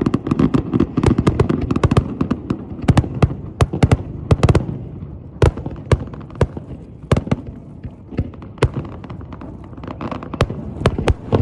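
Fireworks display going off: a rapid run of sharp bangs and cracks over a low rumble, packed close together for the first few seconds and then thinning to scattered bangs.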